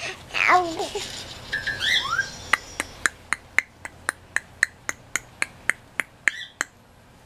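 A baby's brief vocalizing, then a short rising electronic tone from the toys of a Disney Minnie Mouse PeekABoo activity jumper. Then a run of about fifteen evenly spaced clicks, roughly four a second, which stop after about four seconds.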